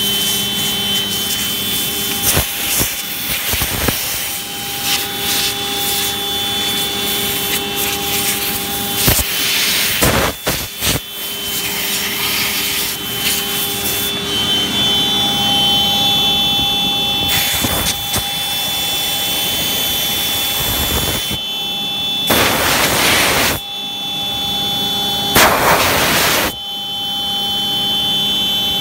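CNC router spindle running with a steady high whine while its bit cuts a contour through a flat sheet, over a continuous rasp of cutting. A few louder rushes of noise, each about a second long, come in the second half.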